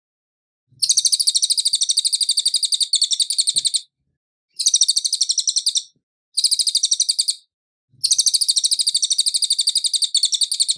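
A cililin singing four bursts of fast, rapid-fire repeated high notes. The bursts last about one to three seconds each, with short silent gaps between them.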